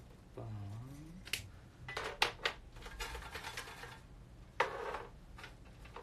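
Hands handling a small box of folded paper raffle slips: a string of sharp clicks and rattling, rustling bursts as the slips are stirred. A short rising hummed voice comes just before, about half a second in.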